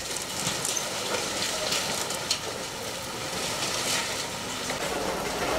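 Steady, noisy din of vehicle engines and machinery with scattered knocks and clatter.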